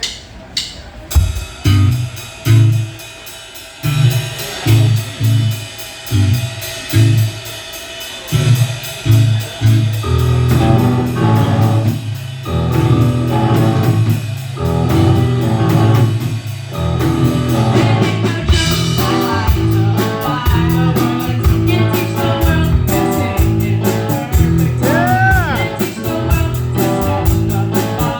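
Live rock band starting a song: a stop-start riff of short, spaced low notes on bass and guitar, the full band with drum kit coming in steadily about ten seconds in, and cymbals filling out the sound from about eighteen seconds in.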